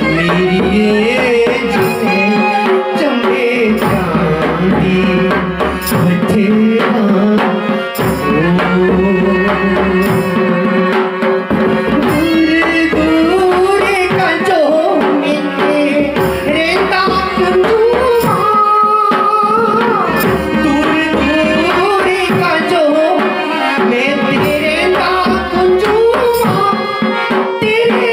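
A Himachali Pahari folk song sung solo through a microphone and PA, with a wavering, ornamented melody over harmonium and hand-drum accompaniment.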